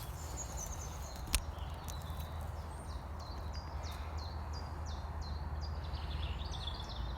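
A small bird singing, a run of short high repeated notes about two a second that turn into a brief warble near the end, over a steady low rumble. A single sharp click about one and a half seconds in.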